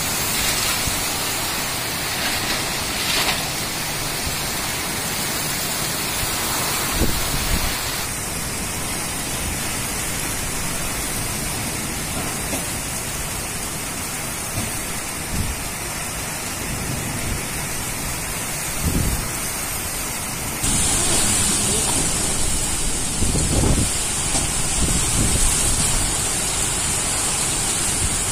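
Heavy rain pouring down in a dense, steady hiss, with a few low rumbles and gusts. The texture of the hiss changes abruptly twice.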